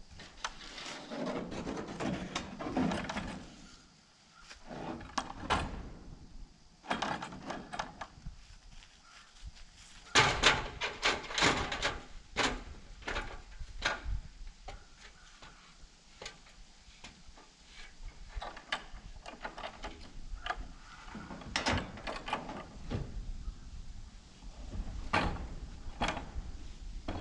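Scattered wooden knocks and clatter as a wooden sliding barn door frame is propped against the barn and a metal ladder is set against it and climbed, with a loud run of knocks a little over a third of the way in.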